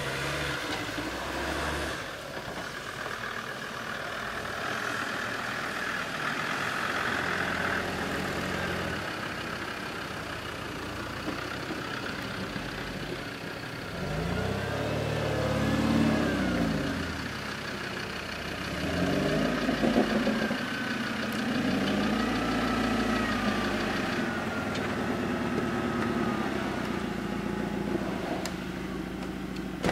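A VW T3 Syncro van's engine running at low speed, off-road. It rises and falls in pitch as it is revved, twice: around halfway through, and again a few seconds later.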